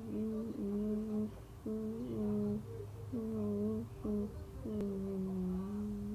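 A person humming a slow wordless tune in long held notes with short breaks between them, the longest note near the end, over a low steady background hum.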